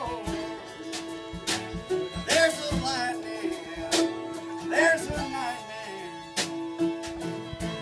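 Bluegrass band playing: fiddle, mandolin and strummed acoustic guitar over a drum kit, with sliding fiddle notes and a steady beat.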